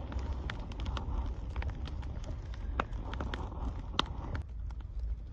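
Open wood fire crackling, with irregular sharp pops over a steady low rumble.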